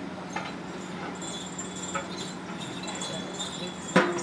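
Long metal ladles knocking and scraping against large metal cooking pots: light clinks with a thin metallic ringing, then one loud clank near the end. A steady low hum runs underneath.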